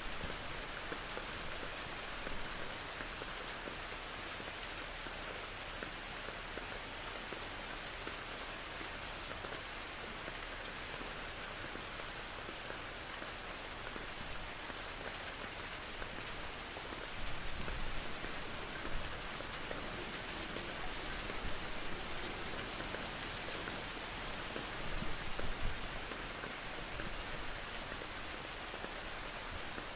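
Steady rain falling on a surface, an even hiss of drops, with low swells of distant thunder rumbling a little past halfway and again later on.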